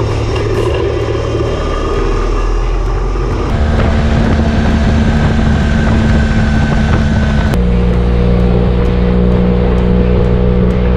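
BMW R 18's 1802 cc boxer twin running at steady revs. Its note changes abruptly twice and is louder from about a third of the way in.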